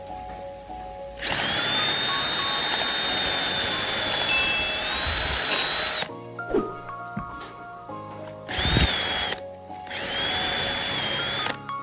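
Electric power tool running in three bursts, a long one of about five seconds followed by two short ones, its motor giving a high steady whine. Background music plays underneath.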